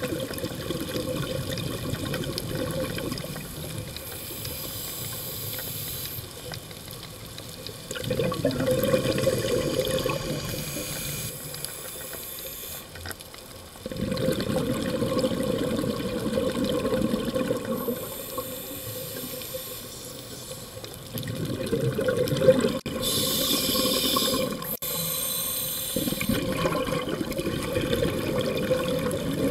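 Scuba diver breathing through a regulator underwater: a high hiss on each inhale, then a long bubbling rush on each exhale, repeating every several seconds.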